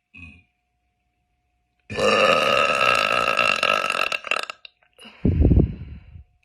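A girl burping loudly: one long, drawn-out burp lasting over two seconds, starting about two seconds in. It is followed about a second later by a short, deep burst of sound.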